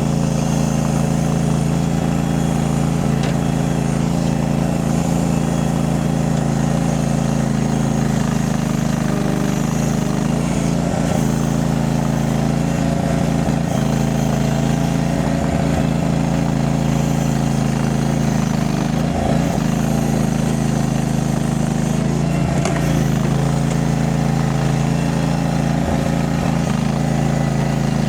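Mini skid steer's engine running at a steady speed, an even drone that holds unchanged throughout.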